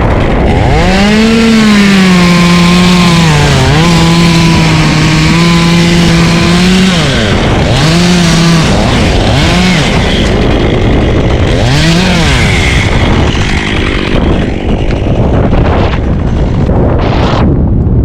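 Chainsaw cutting up in the treetop: revved up about a second in and held steady under load for about six seconds, then let off and revved in three short bursts. Wind rushes over the microphone throughout and is all that is left in the last few seconds.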